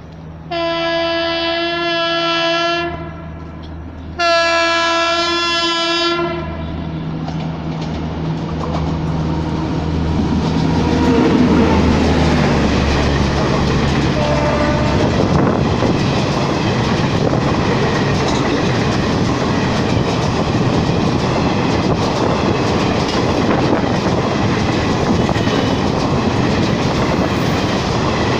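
Indian Railways WAP-5 electric locomotive sounding its horn in two blasts of about two seconds each. An express train then passes at high speed, its wheels running and clattering over the rails in a loud, steady rush.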